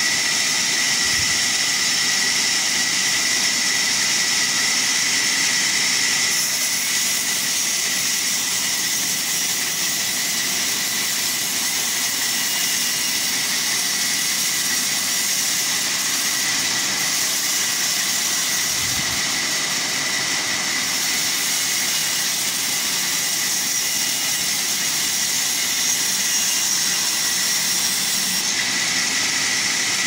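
Large vertical band saw running and ripping a log lengthwise: a steady high whine over a constant hiss.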